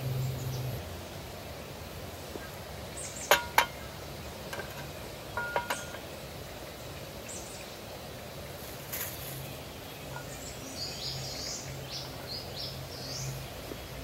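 Steady outdoor forest ambience with small birds chirping, mostly in the second half. Two sharp metallic clinks come about three seconds in, and a few fainter ringing clinks follow a couple of seconds later.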